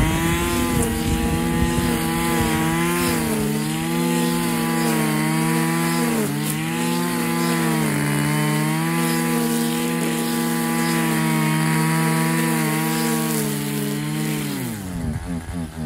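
Husqvarna 545RX brushcutter's two-stroke engine running at high revs while cutting grass and weeds, its pitch dipping briefly a few times. Near the end the engine note falls away sharply.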